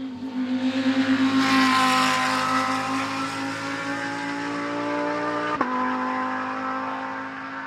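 Race car accelerating hard past the trackside, its engine note climbing steadily. It is loudest about two seconds in. About five and a half seconds in, one quick upshift drops the pitch, and the engine then pulls away and fades.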